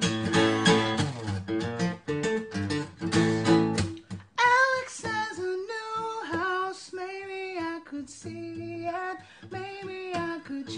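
Acoustic guitar strummed, then a man singing a melody with long held notes over lighter guitar from about four seconds in.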